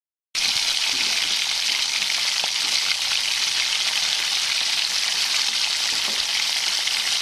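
A steady sizzling hiss like food frying, setting in abruptly just after the start and running on evenly, with a few faint ticks.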